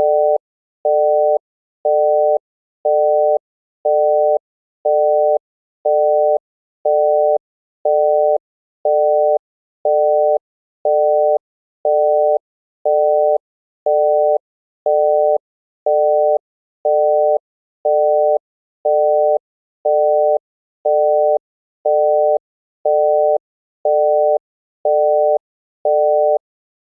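Telephone busy signal in an older US variant: a 600 Hz tone amplitude-modulated by 160 Hz, giving a buzzy, rough beep. It repeats as steady half-second beeps with half-second gaps, about one a second.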